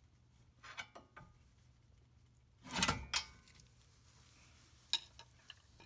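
Metal clanks from a steel pry bar working between a front lower control arm and its ball joint while prying them apart. A few light clicks come first, then a loud clank with a short ring about three seconds in, and a sharp click near the end.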